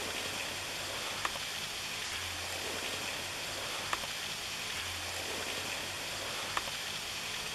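Waterfall: a steady rush of falling water, at low flow in a dry year.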